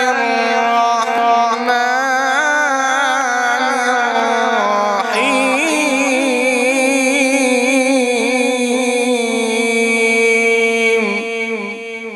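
A male qari's melodic Quran recitation (tilawat), sung in ornamented, wavering phrases. About halfway through he holds one long drawn-out note, which dies away near the end.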